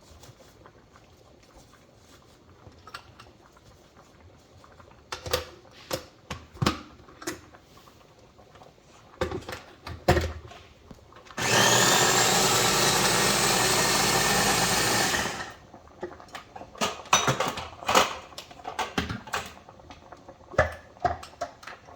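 Electric blender running in one burst of about four seconds, chopping basil for pesto; the motor rises in pitch as it spins up and then stops abruptly. Knocks and clatter of handling the blender jar and lid come before and after.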